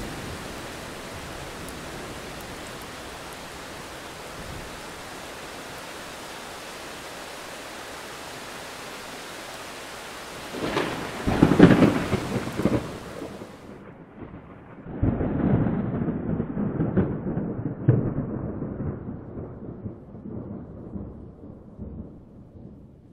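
Rain falling steadily on foliage, then about ten seconds in a loud crackling clap of thunder, followed after a short lull by a second, longer rumble of thunder that slowly dies away. From the first clap on, the sound is duller, with the hiss of the rain gone from the top.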